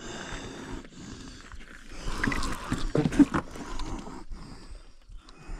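A spinning reel being cranked to wind in line, with a man's heavy breaths and short grunts about two and three seconds in.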